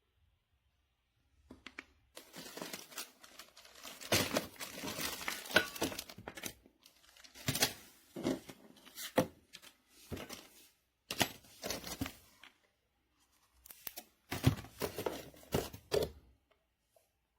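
Crinkling and rustling of something being handled, in irregular bursts separated by short pauses.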